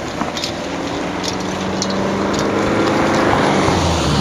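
An engine running with a steady hum that grows louder over a few seconds, with a few faint clicks.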